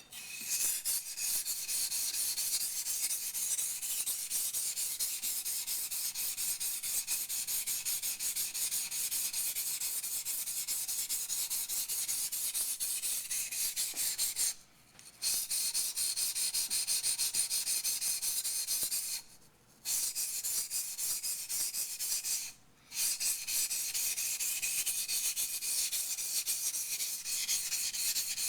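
Steel yanagi blade being ground back and forth on a wet waterstone: a continuous gritty scraping that stops briefly three times, about halfway through, two-thirds of the way through, and again soon after. It is the grinding stage of repairing an unevenly ground bevel.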